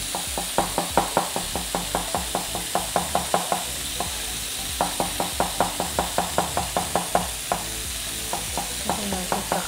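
Chef's knife finely chopping onion on a plastic cutting board: quick, regular taps about four or five a second, with a short pause about four seconds in and sparser taps near the end. Under them, the steady sizzle of chicken skewers frying in a pan.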